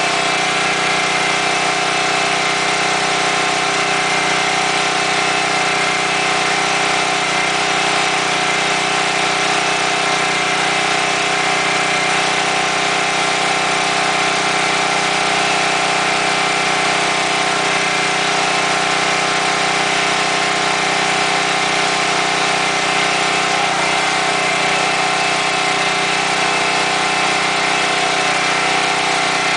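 Portable gasoline generator running steadily at an even speed close by, powering a MIG welder.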